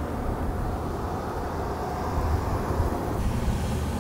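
Steady low rumbling noise with no distinct events, growing slightly louder about halfway through.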